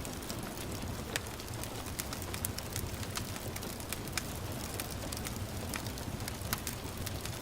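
Wood fire crackling, with irregular sharp pops over a steady hiss of gentle rain.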